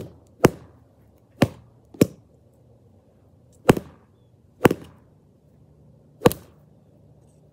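A thin wooden stick whacking a vinyl freestanding punching bag: about seven sharp smacks at irregular intervals, some in quick pairs.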